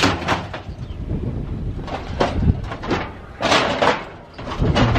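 Scrap sheet-metal appliances and junk clanking and scraping under someone climbing over a scrap heap: a string of separate knocks, rattles and scrapes.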